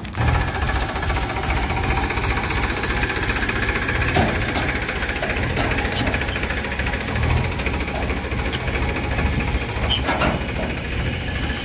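Farmtrac tractor's diesel engine running steadily at low revs, with a couple of light knocks about four and ten seconds in.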